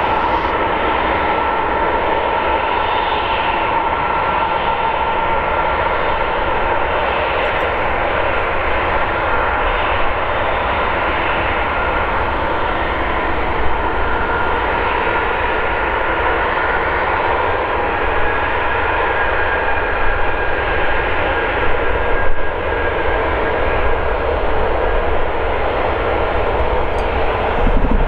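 Boeing 737-800's CFM56-7B turbofan engines running with a steady whine as the airliner lines up on the runway and begins its takeoff roll.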